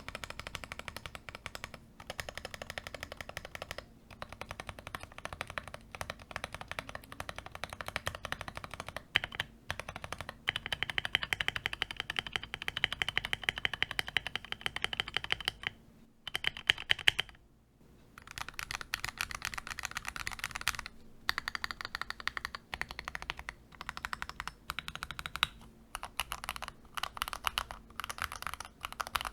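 Akko MOD005 gasket-mounted mechanical keyboard being typed on quickly: a dense stream of keystrokes with brief gaps and one longer pause about two-thirds of the way through.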